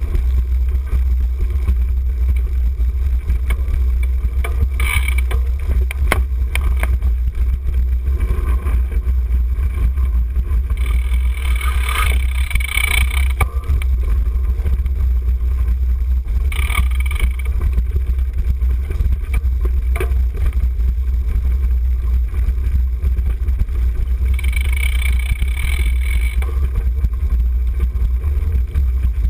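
Cyclocross bike ridden hard, heard from a handlebar-mounted camera. There is a constant loud low rumble of wind buffeting and frame vibration, with tyres crunching over leaves and gravel in several louder patches and a few sharp knocks from bumps.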